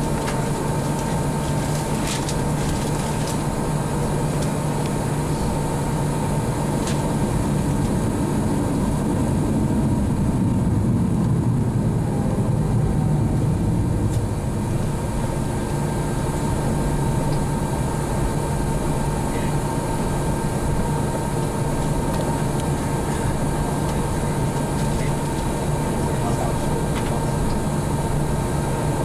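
Steady cabin drone inside an Airbus A321 on the ground before takeoff: idling jet engines and cabin air, with a low hum and a higher steady whine. The low rumble swells briefly around the middle.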